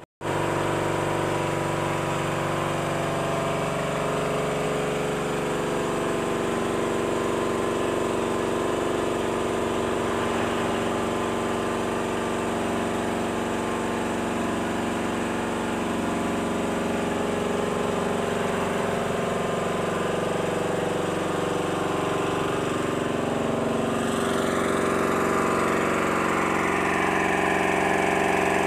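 Small portable generator engine running steadily at a constant speed. About three-quarters of the way through, a higher hiss rises in and continues over it.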